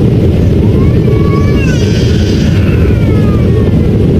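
Steady loud low roar of a Boeing 777-300ER's jet engines heard inside the passenger cabin. Around the middle a faint high voice rises and falls over it.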